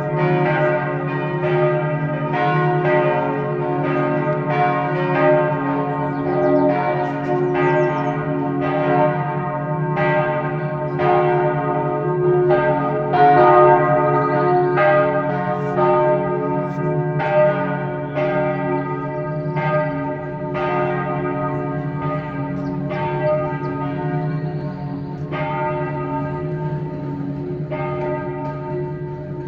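Church bells ringing the noon peal: repeated strikes about one to two a second, each ringing on over a steady low hum of the bells. The strokes thin out near the end.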